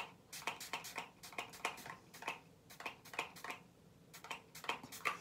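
A rapid, irregular series of short, light clicks and taps, several a second.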